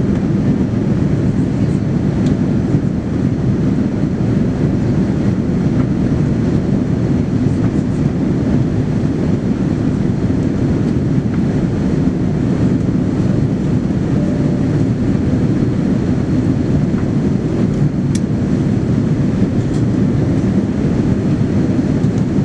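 Steady low rumble of jet engines and rushing air heard inside the cabin of a Boeing 787-9 Dreamliner airliner climbing out after takeoff.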